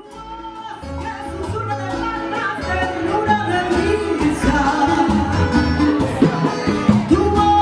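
Live Cuban-style band music: a woman singing into a microphone over an upright double bass and accompaniment. It fades in over the first second or so.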